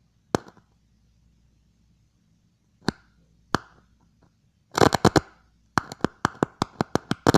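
Sharp clicks from two screwdrivers used as the contacts of a makeshift switch, keying a magnetic amplifier circuit: a few scattered clicks, a quick cluster about five seconds in, then a fast even run of about six clicks a second.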